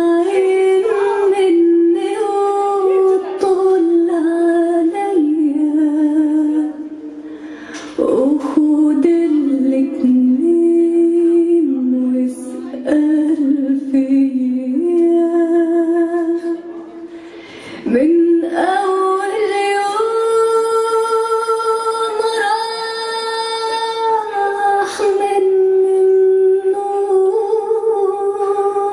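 Music with a woman singing a single melodic line of long held notes and ornamented turns, with little accompaniment audible; the voice pauses briefly several times, about seven and eighteen seconds in.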